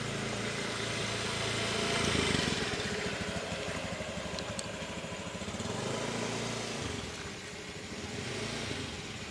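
An engine running, starting abruptly, loudest about two seconds in and swelling again around six seconds.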